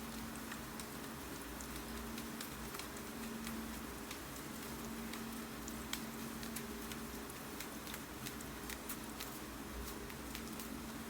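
Steady rain with irregular sharp clicks of keyboard typing scattered through it, over a low steady hum.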